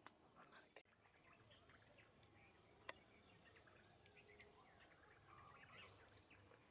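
Near silence: faint outdoor ambience with a few soft bird chirps and a couple of small clicks.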